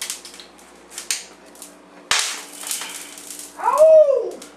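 Hot cooking oil popping and spitting in a pan: sharp scattered pops and a short hissing burst about two seconds in. Near the end a man yelps "Ow!", the loudest sound.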